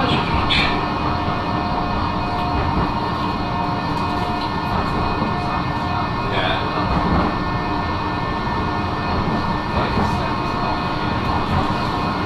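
Blackpool electric tram running along its line, heard from on board: a steady rumble and running noise with a faint steady whine of several tones.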